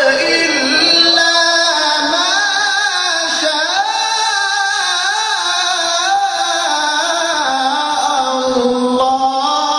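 A man's voice chanting a Qur'an recitation in maqam Nahawand in the melodic mujawwad style: one long unbroken melismatic phrase with wavering ornamental turns, dropping to a lower pitch near the end.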